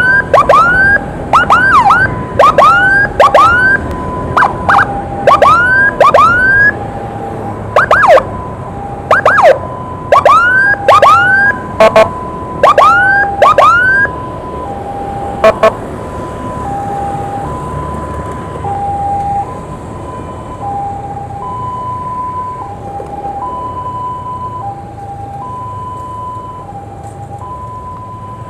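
Ambulance escort sirens. A hi-lo siren alternates steadily between two pitches, and loud, short rising whoop blasts sound over it about twice a second. About halfway through the whoops stop, and the hi-lo siren carries on more quietly.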